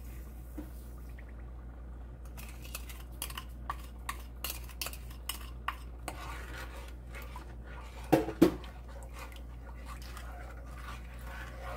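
Wooden spoon stirring a pan of thin tteokbokki sauce, with many quick clicks and taps of the spoon against the pan. A brief louder sound comes about eight seconds in, over a steady low hum.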